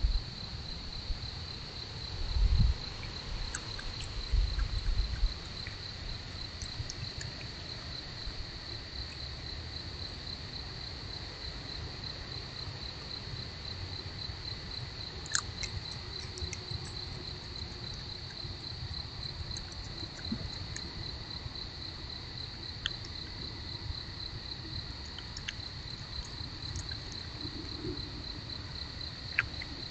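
Night insects chirping in a steady, fast, even pulse, over a young fox chewing at a tree stump: soft low crunching thumps a few seconds in, then scattered sharp clicks.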